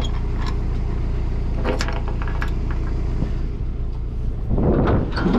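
A vehicle engine running steadily with a low, even hum. About four and a half seconds in, a loud rushing noise rises over it.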